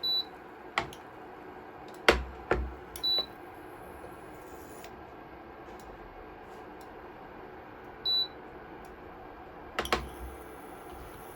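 Three short, single-pitched electronic beeps, the first at the very start, then about 3 s and 8 s in. Between them come a few sharp clicks and knocks, the loudest about two seconds in.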